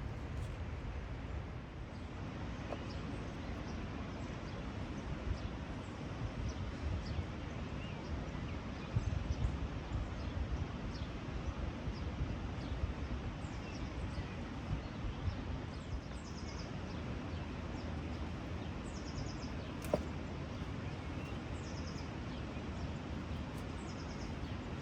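Outdoor ambience: a steady low rumbling noise, with small birds chirping faintly in short high series now and then, more often in the second half.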